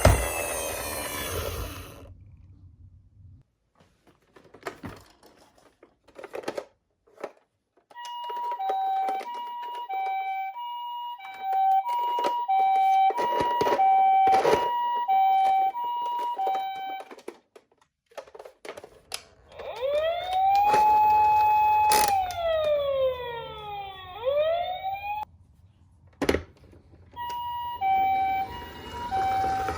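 Toy ambulance's electronic siren sounding the two-tone hi-lo ambulance call, switching back and forth between a higher and a lower tone, then a single wail that rises, holds and falls, with the two-tone call starting again near the end. Scattered clicks fill the quiet gaps between the siren sounds.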